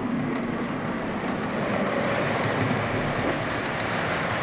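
Model electric locomotive and panoramic coaches running out of a tunnel on a model railway: a steady rumble of the motor and the wheels on the track, with a low hum.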